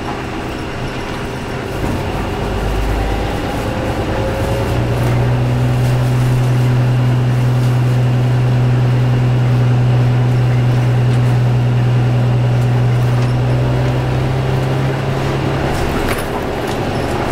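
Nissan Diesel RN bus's diesel engine and drivetrain heard from inside the passenger cabin while under way. The engine pulls harder about two seconds in, then holds a steady low drone for about ten seconds before easing off near the end.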